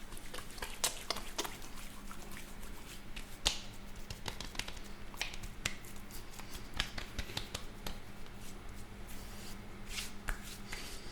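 Shaving foley: irregular crisp clicks, pats and short rustles of hands at work, a few louder than the rest, over a faint steady hum.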